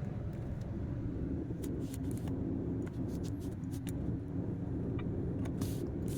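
Truck engine running steadily while under way, a continuous low hum, with scattered light clicks and rattles over it.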